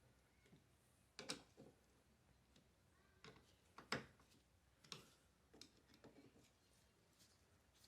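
Faint, irregular light clicks and taps of a screwdriver working the fuel filter housing lid screws, checking them for tightness.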